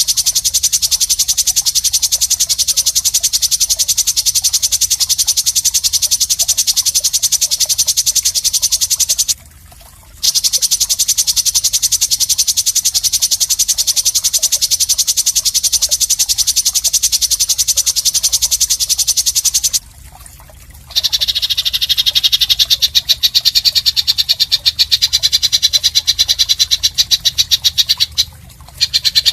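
A loud, rapid, high-pitched buzzing trill, a rough 'isian kasar' call of the kind played to train contest songbirds. It runs in long phrases of about ten seconds with short breaks. After the second break it goes on at a lower pitch.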